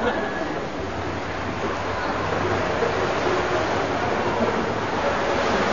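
Echoing indoor swimming-pool ambience: a steady rush of water and splashing, with faint voices in the hall.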